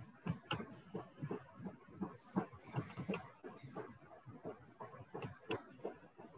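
Faint, irregular clicks and taps, several a second, over low room noise.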